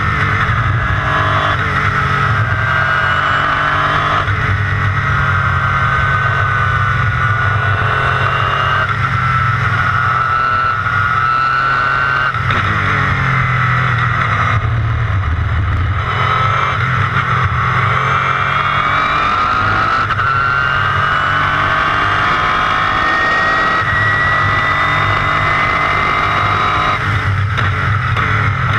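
Two-seater IndyCar's engine at speed on a race track, heard onboard. Its pitch climbs as it accelerates, with sudden breaks at gear changes, a brief lift off the throttle about halfway through, then a long climb through the gears.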